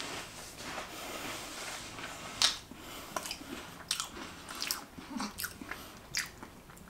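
Close-up chewing and biting of a chocolate-coated crème sandwich cookie: soft mouth noise, then a run of short crunchy clicks, the sharpest about two and a half seconds in.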